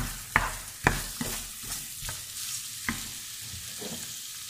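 Freshly added diced raw chicken breast frying with onion and green pepper in a non-stick pan, sizzling steadily. A wooden spoon stirring it knocks against the pan several times in the first three seconds, then stirs more quietly.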